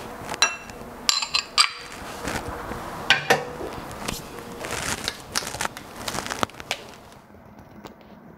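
Glass and crockery clinking and knocking on a granite countertop as a small glass bowl is set down and kitchen things are handled: several sharp clinks with brief ringing in the first two seconds, a louder knock about three seconds in, then lighter taps that die away near the end.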